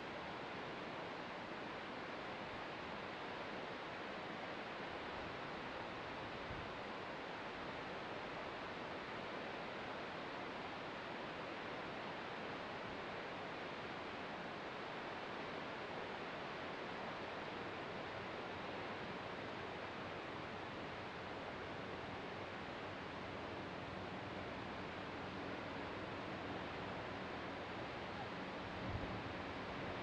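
Distant ocean surf heard from a clifftop overlook, blending into a steady, even wash with no separate wave breaks. A soft low thump comes about a second before the end.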